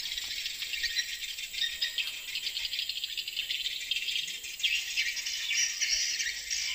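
Dense chorus of insects chirping, a steady high-pitched buzzing rattle that swells a little near the end.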